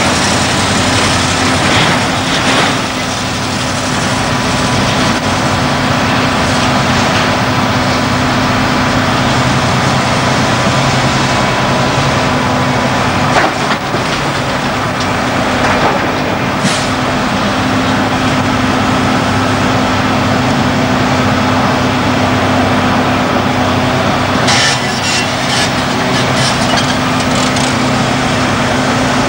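Liebherr R992 hydraulic excavator's diesel engine running steadily while it digs and dumps blasted rock into a dump truck. Rocks crash and clatter several times: once about 13 seconds in, again a few seconds later, and in a quick cluster near the end.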